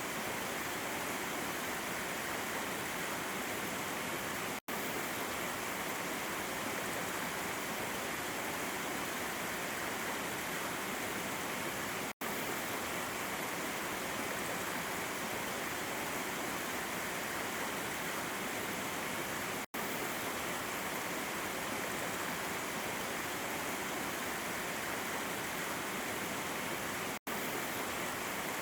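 Water rushing over rocks at a waterfall, a steady, even noise. It cuts out completely for an instant four times, about every seven and a half seconds.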